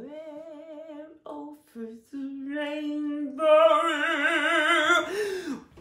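A solo voice singing long held notes with a wide vibrato, swelling much louder about three and a half seconds in and ending with a downward slide.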